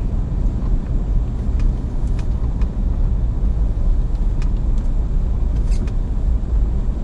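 Steady low rumble of a car driving on a snowy road, engine and tyre noise heard from inside the cabin, with a few faint clicks.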